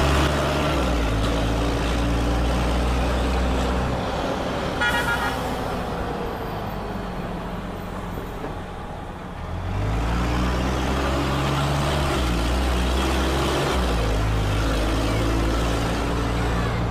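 Mercedes-Benz O-500M city bus's diesel engine under way, heard from aboard, with the exhaust holed. The engine note shifts in pitch a few times, eases off and goes quieter for several seconds in the middle, then picks up strongly again as the bus pulls away. A short horn toot sounds about five seconds in.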